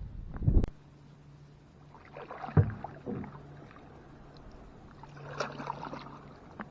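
Kayak paddling: splashing and dripping from paddle strokes in two spells, with one sharp knock, likely the paddle against the hull, about two and a half seconds in. A brief low rumble comes at the very start.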